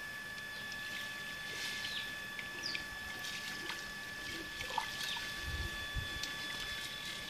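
Light stirring of a wooden spoon in a large aluminium pot of simmering milk as berkoukes pellets are sprinkled in, with scattered short chirps of small birds over a steady high-pitched whine.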